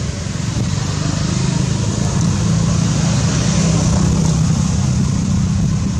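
Motor vehicle engine running nearby, a steady low rumble that swells a little louder through the middle.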